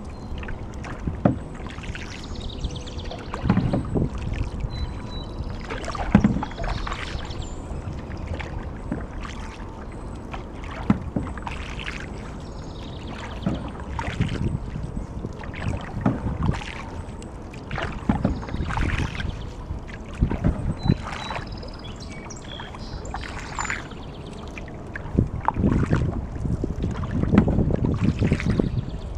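Canoe paddle strokes on calm water: a short splash and drip with each stroke, about one every two seconds, over low wind rumble on the microphone.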